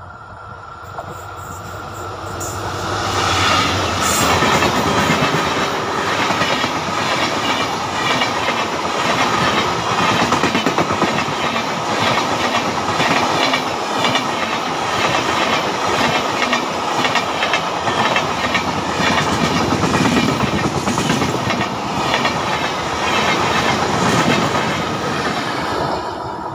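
Express passenger train at speed, hauled by an Indian Railways WDP4D diesel locomotive with a rake of LHB coaches, passing close by. The locomotive comes up and passes about four seconds in. Then the steady rhythmic clickety-clack of the coach wheels on the rails carries on, dropping away as the last coach goes by near the end.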